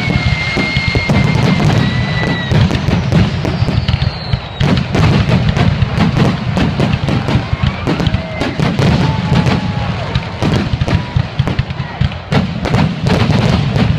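A rapid barrage of aerial firework shells bursting, with booms and crackles coming several times a second over a constant low rumble. A high steady whistle sounds over the first couple of seconds.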